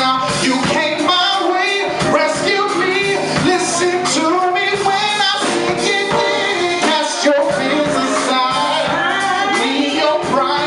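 A gospel song performed live: singing, with a woman's voice prominent, over a band with drums.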